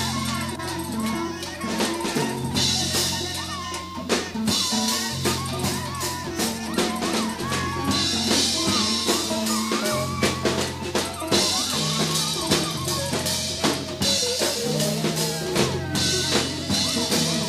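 Studio recording of a jazz band, played from a tape dub of the reel-to-reel master: a drum kit keeps a busy beat of snare, bass drum and cymbals under held low notes, with a wavering melodic line above.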